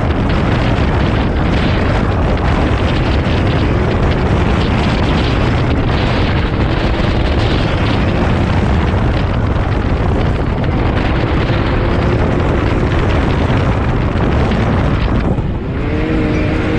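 Side-by-side UTV engine running under power with heavy wind buffeting on an onboard camera's microphone. Near the end the wind noise drops briefly and the engine's note comes through more clearly, rising and falling.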